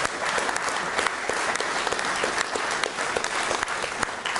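A small group of people applauding, many separate hand claps running together at a steady level.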